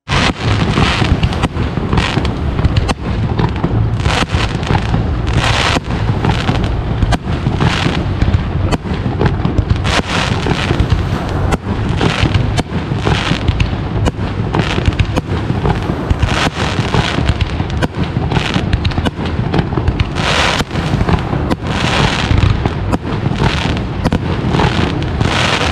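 Continuous rapid pops and sharp bangs, many a second, over a steady low rumble, with louder clusters of bangs every few seconds.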